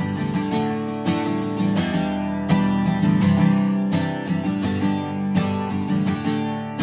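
Acoustic guitar strumming chords in the key of G in an unfamiliar syncopated strum pattern. The playing is a little shaky.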